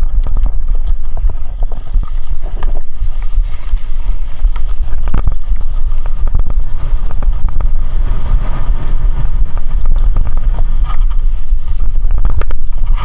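Heavy wind rumble buffeting the microphone, with scattered sharp taps and ticks throughout.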